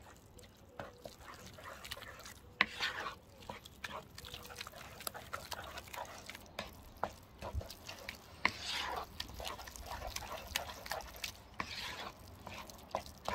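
Wooden spoon stirring a thick, wet eggplant dip in a bamboo bowl: wet squelching with repeated clicks and knocks of the spoon against the bowl.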